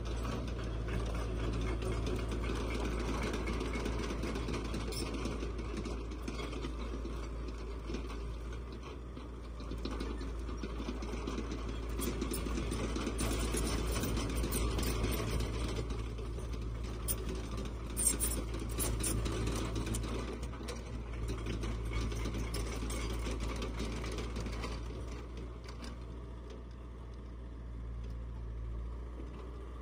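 Komatsu PC60-7 mini excavator's diesel engine running steadily, with scattered sharp clicks in the middle.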